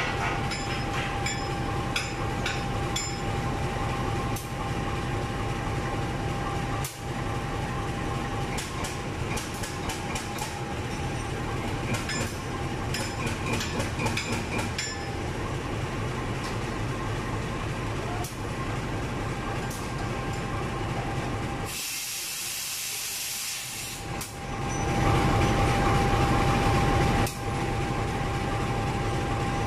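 Diesel-electric locomotive standing and idling, a steady drone with a constant whine, while metal clinks and taps sound at the bogie during its inspection. About two-thirds of the way through, a hiss of air lasts about two seconds.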